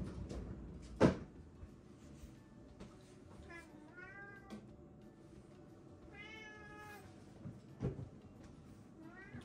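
A cat meowing: a bending call about three and a half seconds in, a longer one around six seconds, and another starting near the end. A single sharp knock about a second in is the loudest sound.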